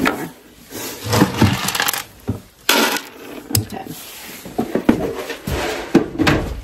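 Goat grain being scooped from a plastic feed barrel and poured, with knocks and clatter of the plastic containers and short rushes of falling feed.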